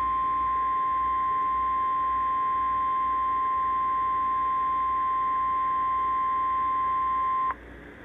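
NOAA Weather Radio's 1050 Hz warning alarm tone, a single steady tone from a weather radio receiver, sounding for the weekly test and cutting off abruptly about seven and a half seconds in.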